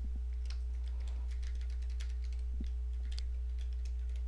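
Typing on a computer keyboard: a run of light, irregular keystroke clicks over a steady low hum.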